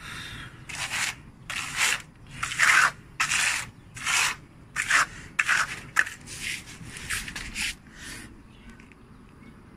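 Wet ready-mix cement plaster being scraped and spread over a crack in a concrete surface: about a dozen short scraping strokes, roughly two a second, that stop near the end.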